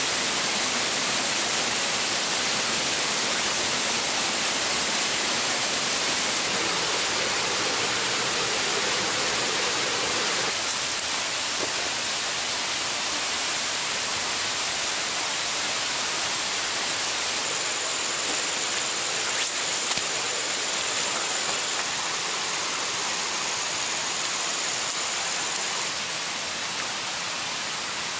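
Steady rush of a rainforest stream cascading over rocks. About ten seconds in the rush thins slightly, and past the middle a thin, high, steady whine joins it for several seconds.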